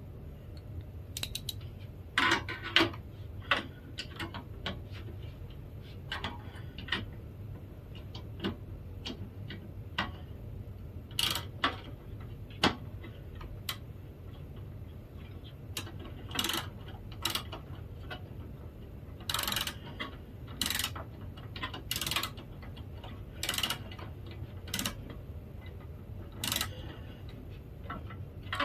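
Hand tools working on an HP printer being dismantled: irregular clicks, knocks and ratchet-like rattles of parts, with a few longer scrapes about two-thirds of the way through, over a steady low hum.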